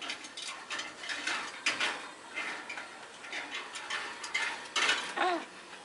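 African grey parrot making a run of short clicks and throat-clearing noises, with one short pitched call that wavers and falls about five seconds in.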